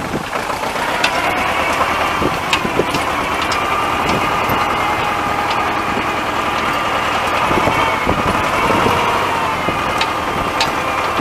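T-25 tractor's two-cylinder air-cooled diesel engine running steadily, with a steady whine over the engine note.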